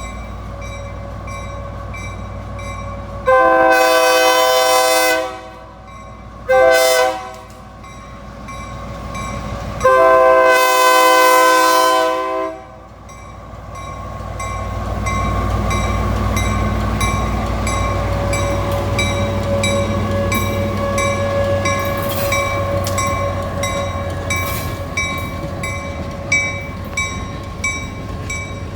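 Locomotive horn of an MP15DC switcher sounding a long, a short and a long blast at a road crossing, then the switcher's diesel and the gondola cars rumbling across, wheels clicking over the rail joints. A tornado siren holds a steady tone underneath.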